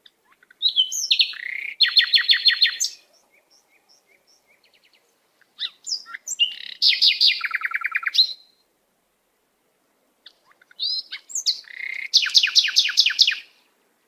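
A songbird singing three phrases about five seconds apart, each a few short high notes running into a fast trill of repeated notes.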